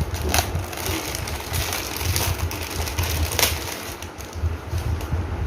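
Packaging being opened by hand: several sharp crinkles and rustles over a steady low rumble of handling noise.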